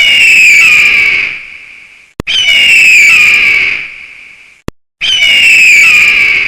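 Eagle screaming: three long, hoarse screams about two and a half seconds apart, each falling slightly in pitch, with a short click between them.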